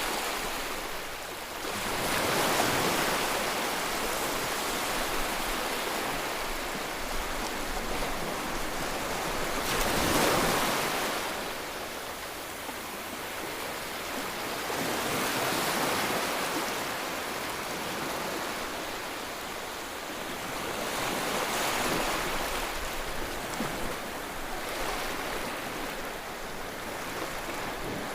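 Sea waves breaking on a beach. The surf swells and eases in slow surges every five to seven seconds, with the loudest break about ten seconds in.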